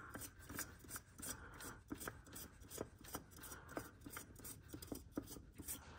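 Faint, irregular scraping and light clicks of a new Fram oil filter being threaded onto its mount by hand.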